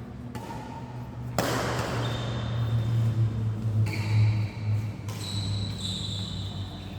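Badminton play on an indoor court: a sharp racket strike about a second and a half in, then brief high-pitched squeaks of shoes on the court floor in the second half, over a steady low hum.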